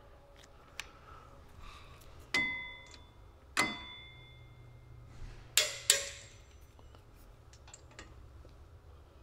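Torque wrench clicking as the drive shaft's set screws are tightened to 18 foot-pounds: sharp metallic clicks with a brief ring, two about a second apart, then a close pair about two seconds later.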